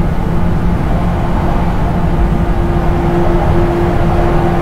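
A JR 475 series EMU running through a tunnel, heard from the deck of its motor car: a steady rumble with a droning hum from the MT54 DC traction motors and 19:80 gear mesh. The hum grows stronger about two and a half seconds in.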